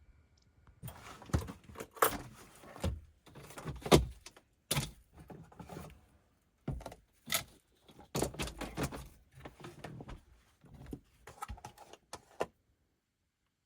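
Irregular clinks, knocks and rattles of small hard objects being handled and set down, with a few sharper strikes among them. The sound stops abruptly near the end.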